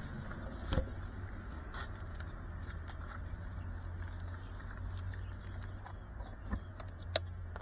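Steady low outdoor rumble of street ambience, with a few sharp clicks and knocks from the drone and its action camera being handled, one near the start and two near the end.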